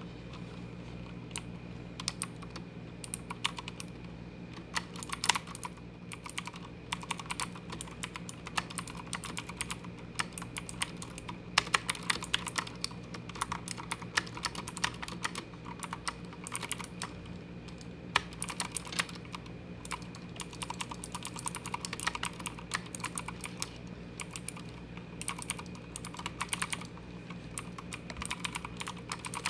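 Keys of a Motospeed CK61 mechanical keyboard being pressed and released in quick, irregular runs, clacking close to the microphone.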